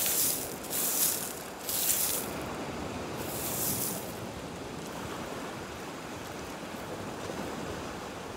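Surf washing on a pebble beach with wind, as a steady hiss. Four short rustles stand out over the first four seconds.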